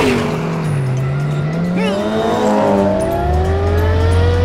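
Cartoon race car engine sound effects revving up, several overlapping engine notes dipping and then climbing steadily in pitch, over background music.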